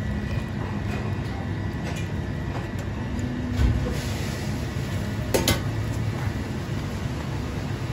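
Steady low rumble of commercial kitchen machinery. Brief plastic handling noise, with a sharp double click about two thirds of the way in.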